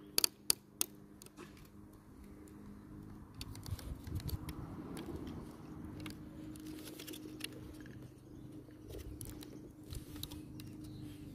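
Small plastic clicks and scraping as a screwdriver tip prises a windscreen-washer nozzle out of a plastic brake-light housing. There is a cluster of clicks about a second in and scattered ones after, over a faint steady low hum.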